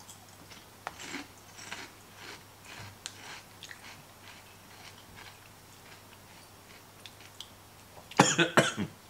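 A person chewing a crunchy potato chip in the mouth, with faint scattered crackles over the first few seconds. Near the end comes a short, loud burst of crinkling as the foil chip bag is handled.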